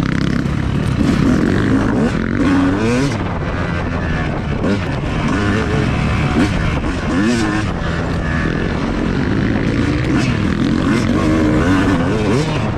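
Yamaha dirt bike's engine revving up and down while it is ridden hard along a rough dirt trail, its pitch rising and falling over and over.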